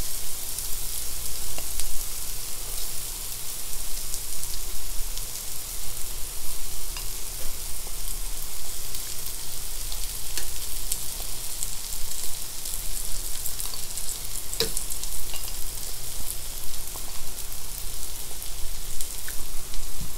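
Canned corned beef and onions sizzling in oil in a stainless steel sauté pan, the burner just switched off. It is a steady crackling hiss, with occasional clicks of metal tongs against the pan as the onions are spread, one sharper click about three-quarters of the way through.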